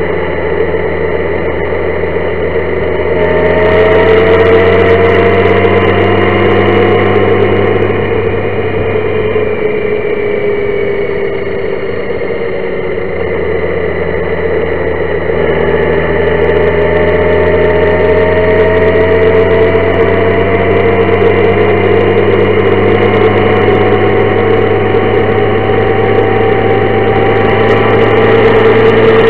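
Honda Gold Wing motorcycle engine running at road speed, under a steady rush of wind and road noise. The engine note drops away briefly about ten seconds in, then comes back and climbs slowly in pitch as the bike gathers speed.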